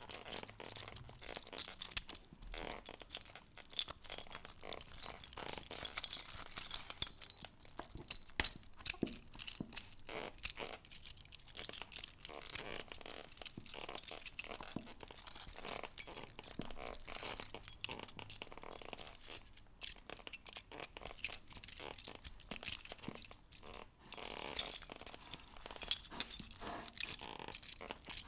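A bunch of keys jangling and clinking close to the microphone, worked one after another at a door lock, with soft leather creaks among the rattles.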